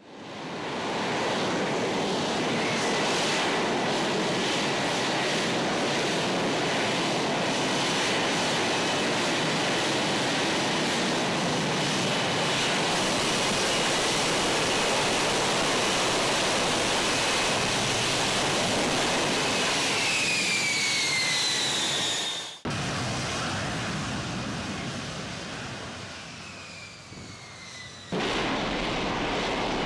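F-35B Lightning II hovering in short-takeoff/vertical-landing mode, its lift fan door open: a loud, steady jet roar. Near the twentieth second a falling whine rides over the roar. The sound cuts off abruptly, then a quieter roar fades away with another falling whine, and a loud jet roar comes back suddenly near the end.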